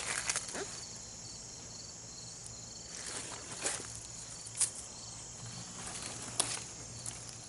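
Insects chirring steadily in the garden, with a quick pulsing chirp above the continuous high buzz. Several brief rustles come on top, about a second apart near the middle and again near the end.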